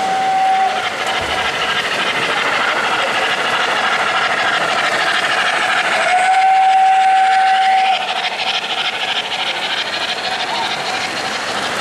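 An O-gauge model steam locomotive's sound system blows its steam whistle twice: a short toot at the start and a longer steady blast of about two seconds around six seconds in. Underneath is a continuous steam-chuffing hiss and the running noise of the train on three-rail track.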